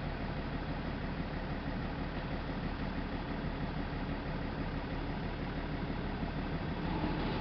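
Truck engine running steadily, heard from inside the cab.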